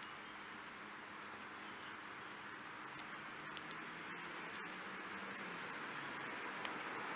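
Guinea pig grazing on lawn grass, with faint crunching and tearing as it chews, over a steady soft hiss of outdoor background.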